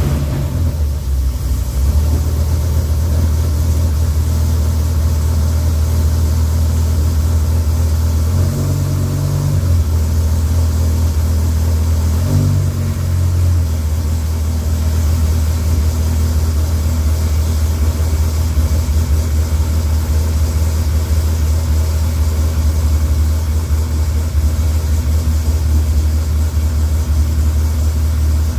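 Freshly rebuilt Dodge Viper V10 engine running at a steady idle on its first start, with no airbox fitted. The engine speed rises briefly twice, at about eight and a half and twelve seconds in, then settles back to idle.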